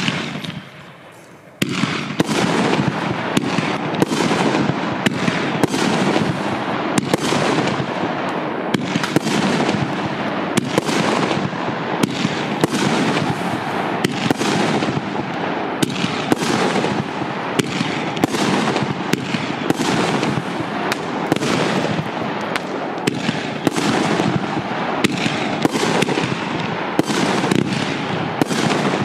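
A Piromax PXB3712 'Skull' 20-shot, 50 mm firework cake firing. One shot goes off, there is a gap of about a second and a half, and then sharp bangs follow about once a second over a steady rushing noise, with no break between them.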